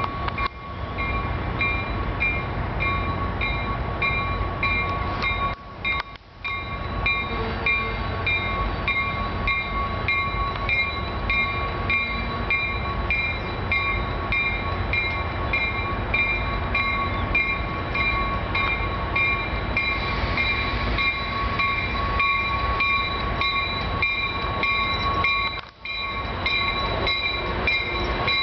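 Metrolink commuter train pulling into the station with its bell ringing steadily, about two strikes a second, over the low rumble of the train. The sound cuts out briefly twice.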